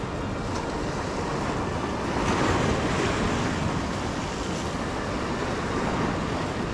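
Sea surf washing over and breaking against shoreline rocks, a steady rush of water with one louder wave swelling about two seconds in.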